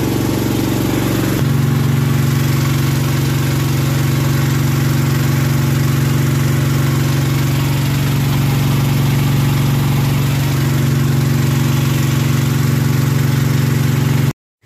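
Small water-pump engine running steadily on gas from an LPG cylinder, a constant low hum. Its note shifts slightly about a second and a half in, and it cuts off suddenly near the end.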